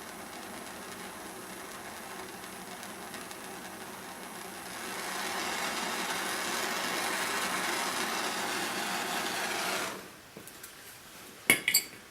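Handheld gas torch flame hissing steadily while heating the solder joint on a throttle cable end, growing louder about halfway through, then shut off suddenly; a couple of sharp metallic clinks follow near the end.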